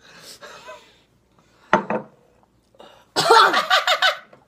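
A person coughing and gagging after swallowing a shot of sesame seed oil: a sharp cough about two seconds in, then a louder, longer vocal outburst near the end.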